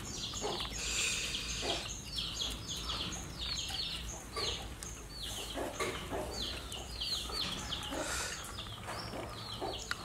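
Birds chirping in quick runs of short, high, falling notes, one run after another throughout.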